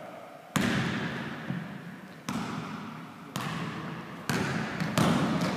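Basketball being dribbled on a gym floor: single bounces, each ringing in the hall, first slow and more than a second apart, then coming steadily quicker toward the end.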